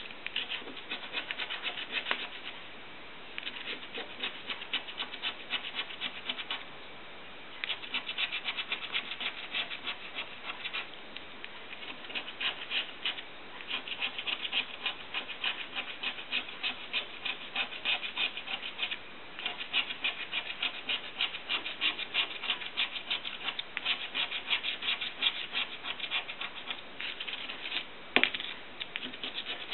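A coin scraping the silver latex coating off a paper scratch card in runs of quick back-and-forth strokes, with short pauses between runs. There is a single sharp knock near the end.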